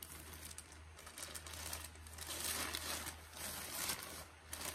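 Clear plastic packaging bag crinkling in irregular rustles as it is handled, loudest about halfway through and again near the end.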